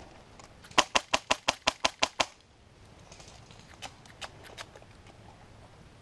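Airsoft rifle firing a quick, evenly spaced string of about nine shots, roughly six a second, followed by a few fainter scattered shots.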